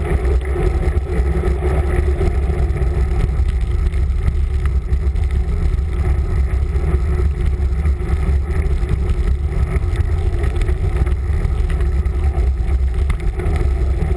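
River in spate after heavy rain, rushing with a steady, loud, deep roar.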